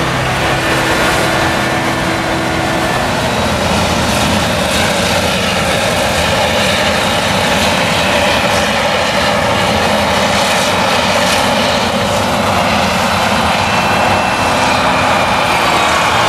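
Claas Jaguar 970 forage harvester with its MAN V8 engine chopping maize, together with the tractor pulling the trailer alongside: a steady, loud mix of engine noise, whine and the rush of the crop blower, unbroken throughout.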